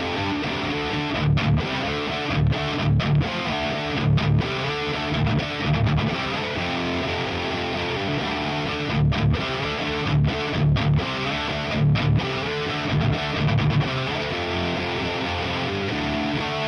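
1980 Gibson Les Paul Custom with stock T-Top humbuckers played through a Diezel VH4 amp and a 4x12 cabinet with Celestion Vintage 30 speakers, a distorted electric guitar riff with repeated heavy low-note chugs and brief stops between phrases.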